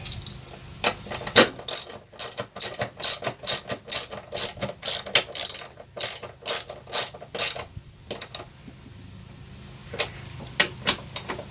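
Hand ratchet clicking in a quick run of about three clicks a second as a bolt is tightened, then a pause and a few more clicks near the end.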